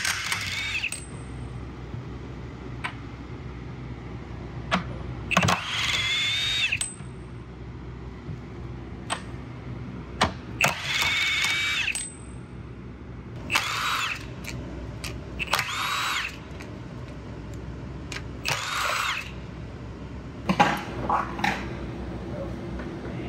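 Power drill running in about six short bursts of a second or so, each one spinning up and winding down as it drives out the fasteners of a battery pack lid. Sharp clicks fall between the bursts.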